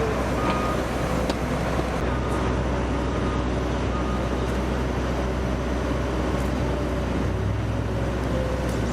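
Heavy earthmoving equipment's engine running steadily, with a backup alarm beeping faintly at intervals.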